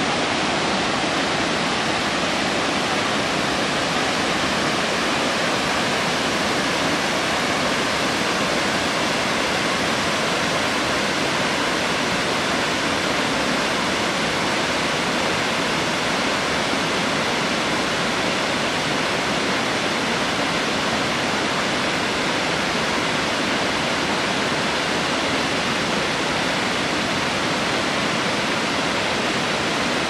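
Steady, unbroken rush of water from a waterfall cascading over rocks.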